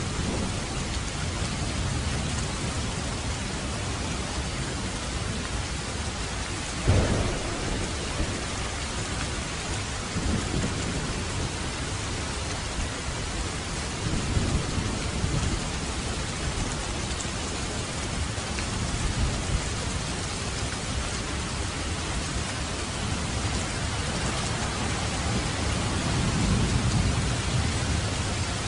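Steady heavy rain falling, with thunder rumbling several times: a sharper clap about seven seconds in, further low rumbles midway and a longer roll near the end.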